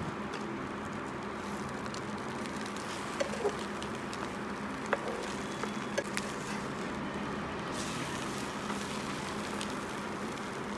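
Egg omelette frying in oil in a nonstick pan, a steady sizzle, with a few light clicks of a spatula against the pan.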